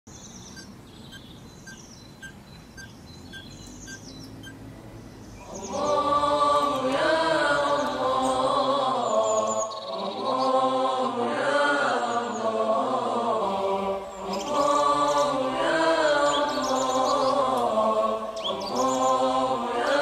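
Faint bird chirping. About six seconds in, a loud unaccompanied vocal chant in long phrases begins, with birds still chirping above it.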